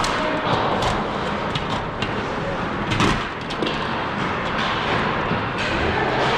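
Ice hockey play in a rink: a steady din of skates and movement on the ice broken by repeated sharp clacks of sticks and puck, with a louder bang about three seconds in.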